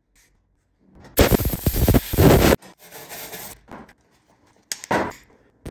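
MIG welder arc crackling in short bursts while welding a plug patch into the old fuel filler hole in the truck's cab sheet metal: one burst of about a second and a half starting about a second in, a fainter rough stretch after it, and another short burst near the end.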